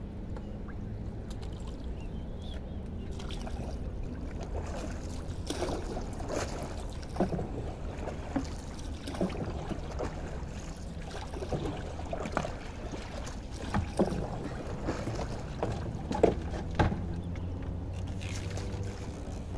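Small wooden boat being worked on the water: splashing and sloshing as a pole is pushed through the water, with irregular knocks and clatter on the hull, starting about five seconds in, over a steady low hum.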